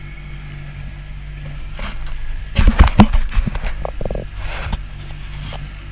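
Knocks and clatters of a caught pearl perch being handled in a lip-grip tool on a boat deck, loudest in a burst about two and a half to three and a half seconds in, over a steady low engine hum.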